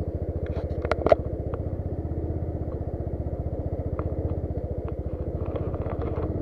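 Motorcycle engine running steadily with an even, rapid pulsing. A sharp knock comes about a second in, and light ticks are scattered through.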